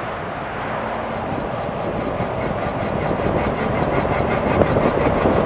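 Toyota AE82 Corolla FX16 GTS with its 4A-GE engine driving along the road: engine and tyre noise grow steadily louder as it gathers speed. From about halfway a regular rhythmic ticking comes in, a few times a second.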